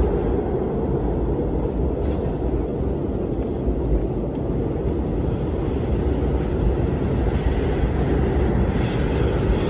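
Strong wind blowing steadily, a deep, even rush of noise without pauses.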